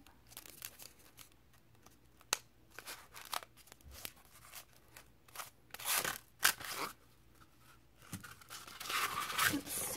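Paper being handled: rustling and crinkling with scattered light clicks and taps, in a couple of short bursts about six seconds in and a longer stretch near the end.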